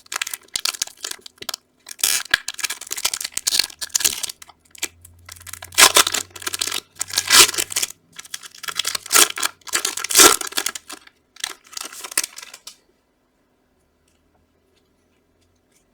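Foil wrapper of a 2019 Prizm football card pack being torn open and crinkled in irregular bursts, stopping about three seconds before the end.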